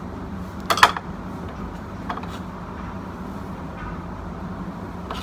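A steady low hum, with a quick cluster of sharp clicks about a second in and a fainter click around two seconds: a small metal hand grater and kitchen utensils being handled on a counter.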